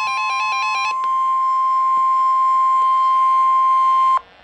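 Emergency alert warning tone: for about the first second a rapid pattern of stepping beeps sounds over a steady high tone. Then one long steady tone is held for about three seconds and cuts off suddenly near the end.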